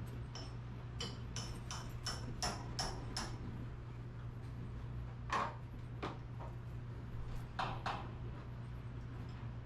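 Garage door torsion springs being wound by hand with winding bars: a quick run of sharp metallic clicks as the bars work in the winding cone, then a few single louder clicks, over a steady low hum.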